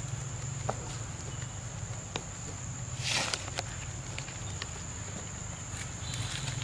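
Outdoor ambience: a steady high insect drone over a low hum, with scattered small clicks and a brief rustle about three seconds in.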